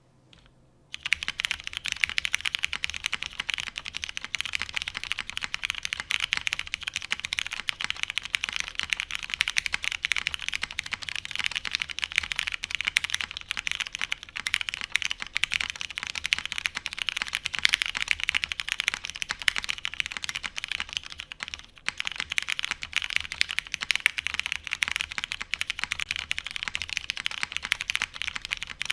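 Fast, continuous typing on a custom mechanical keyboard: a Matrix 8xv2.0 Add with a polycarbonate plate, Cherry MX Hyperglide Brown tactile switches lubed with Krytox 205g0, and GMK doubleshot ABS keycaps. Dense key clacks start about a second in and run on, with a brief pause about two-thirds of the way through.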